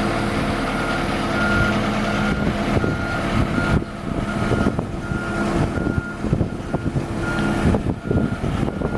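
Boat travel lift moving under remote control: its warning beeper sounds steadily about twice a second over the lift's engine, with scattered clanks. The engine's steady note drops away about four seconds in.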